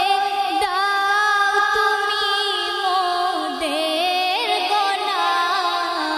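A female voice singing a Bengali Islamic gojol, a devotional song, solo. She holds long melodic notes with wavering ornaments and slides between pitches.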